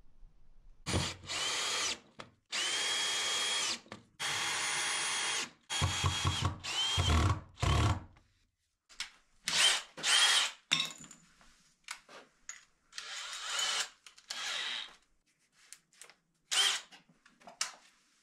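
Cordless drill run in a series of bursts of a second or two, its motor whine climbing to a steady pitch each time it spins up; after about nine seconds the bursts are shorter and further apart.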